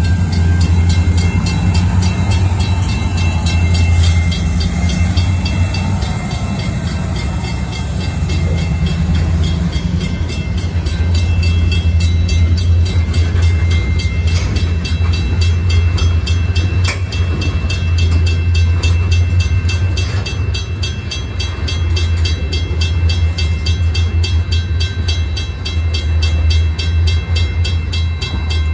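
Freight train cars, covered hoppers and then tank cars, rolling past a grade crossing with a steady, loud rumble and rhythmic wheel clatter. A crossing bell rings in a quick even rhythm on top.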